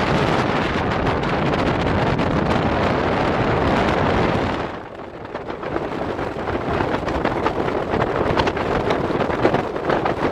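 Wind buffeting the microphone on a moving electric scooter at about 40 to 45 km/h, a loud even rush with no engine note. It drops off sharply about five seconds in, then builds again, rougher and crackling.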